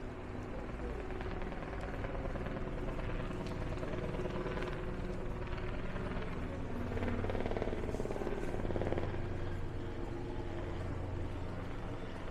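City street traffic: a motor vehicle's engine running with a continuous hum, swelling to its loudest about seven to nine seconds in as it passes.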